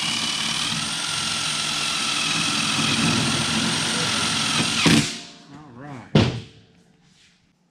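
Cordless drill running steadily for about five seconds, driving a screw into a sheet-metal duct elbow, then stopping abruptly. A sharp knock follows about a second later.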